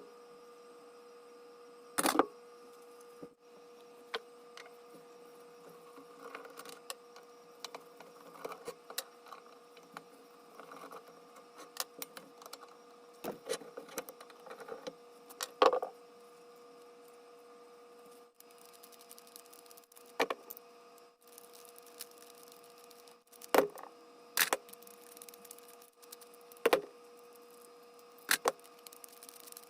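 Tools and metal parts being handled while taking apart a small lathe: scattered sharp clicks and knocks, a few louder than the rest, over a steady hum.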